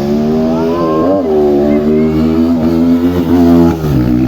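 A bus's basuri telolet horn sounds one long wavering tone. About a second in the pitch slides up and back down, then the note holds, shifting slightly near the end.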